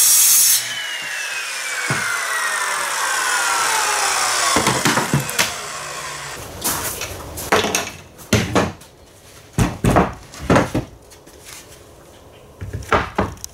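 Circular saw finishing a cut through two stacked plywood sheets, then its blade spinning down with a falling whine once the trigger is released. After that, a run of knocks and clatters as the saw is set down and the cut plywood pieces are lifted and laid down.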